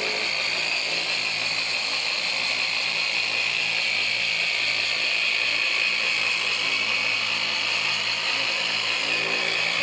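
Handheld electric polisher with a foam pad running steadily against car paint: a constant whine over a low hum.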